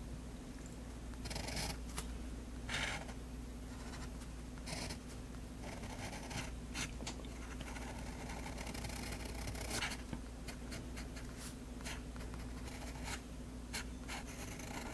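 Extra-fine nib of a Faber-Castell Hexo fountain pen scratching across drawing paper in short, irregular strokes, over a steady low hum.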